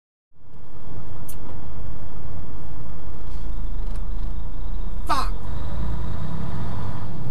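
Steady low rumble of a semi-truck on the highway, engine and tyre noise heard from inside the cab, fading in after a moment of silence at the start. About five seconds in comes a brief pitched sound that glides up and then down.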